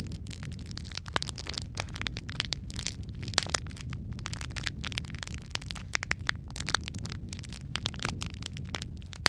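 Fire crackling: a dense, irregular run of sharp cracks and pops over a steady low roar of flame.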